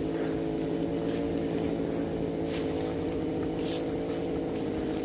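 Small two-stroke chainsaw engine running steadily at an even speed, without revving or cutting.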